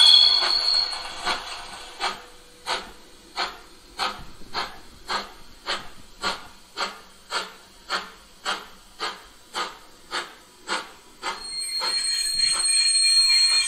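Sound decoder of a 1:32 Gauge 1 model Prussian T3 steam tank locomotive playing steam exhaust chuffs as it runs, a steady beat of about two chuffs a second. A high squeal fades just after the start, and about 12 seconds in the chuffs stop and a steady high hiss takes over.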